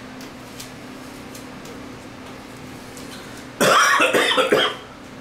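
A man coughing: a loud fit of a few coughs lasting about a second, starting about three and a half seconds in.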